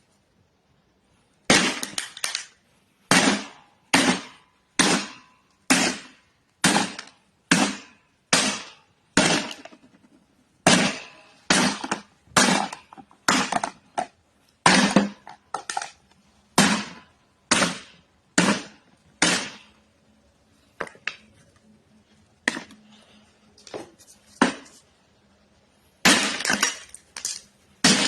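Rubber mallet striking an old typewriter platen whose rubber has hardened to a glass-like brittleness, each blow cracking and breaking it with a sharp, glassy smash. The blows come about once a second, thin out to fainter, sparser taps about two-thirds through, then resume quickly and loudly near the end.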